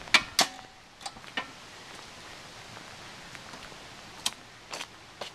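Sharp clicks and clacks from the hookups at a campground utility pedestal being handled: two close together at the start, two more about a second in, and a few near the end.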